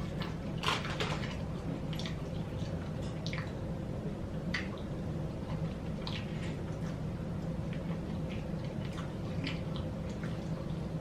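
Close-up mouth sounds of someone chewing French fries: irregular wet smacks and crackly clicks, the loudest about a second in, over a steady low hum.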